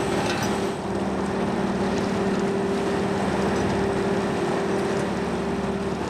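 Small fishing boat's engine and deck machinery running steadily, a constant droning hum.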